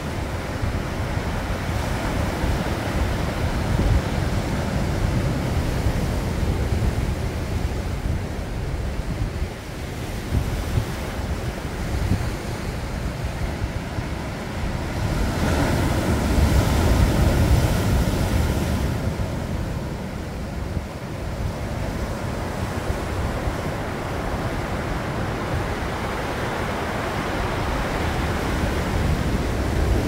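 Sea surf breaking and washing up on a rocky shore in a continuous wash, with a bigger wave crashing in about halfway through. A low rumble of wind on the microphone runs underneath.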